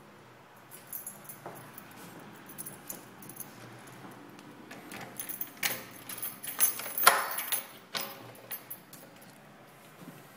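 A bunch of keys jangling as a key is fitted and turned in a door lock, with a run of sharp metallic clicks that is loudest a little past the middle.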